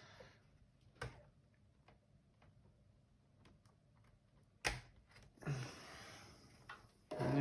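Hard plastic clicks, then a sharp snap a little under five seconds in, followed by about two seconds of scraping and rattling as the front bumper and sensor bar of a Eufy robot vacuum are pried loose.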